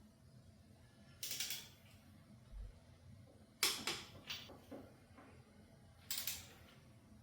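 Torque wrench tightening the main bearing cap bolts to 80 foot-pounds: sharp metallic clicks in three short clusters, a couple of seconds apart.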